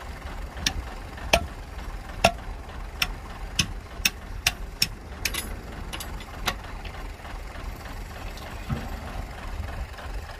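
Heavy diesel engine idling with a steady low rumble, overlaid for the first six seconds or so by about a dozen sharp, irregularly spaced knocks, after which only the idle remains.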